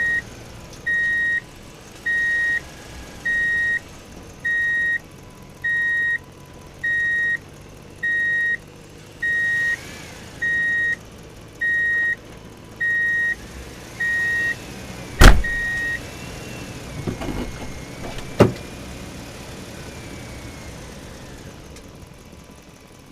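Electronic reversing beeper sounding in even beeps about once a second, stopping about sixteen seconds in. A loud sharp knock comes just before the beeping stops, and another sharp knock follows a few seconds later.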